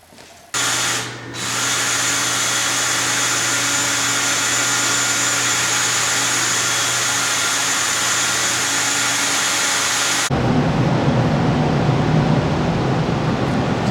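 A power tool's motor running steadily at a high, even pitch, dipping briefly about a second in. Just after ten seconds it gives way abruptly to a rougher, lower, noisier running sound.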